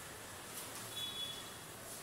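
Faint rubbing and rustling of a glue stick being run over wrapping paper on a box, with a brief faint high squeak about a second in.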